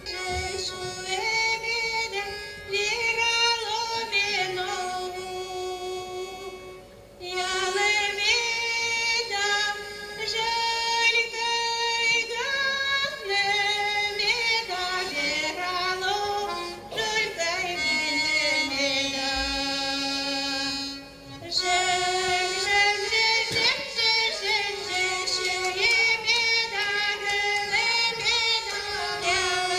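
A woman singing a folk melody to accordion accompaniment, in phrases with a few short breaks between them.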